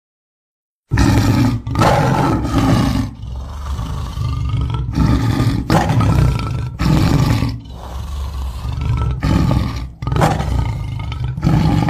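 Big cat roaring and growling in a string of loud, deep, rough roars with short breaks between them. It starts abruptly after about a second of dead silence and cuts off just as abruptly at the end, which suggests a dubbed-in roar sound effect.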